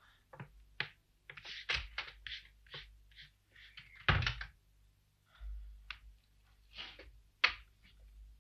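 Footsteps and a wooden door shutting with a thud about four seconds in, then a few more light knocks and a sharp knock near the end, as of things handled at a desk.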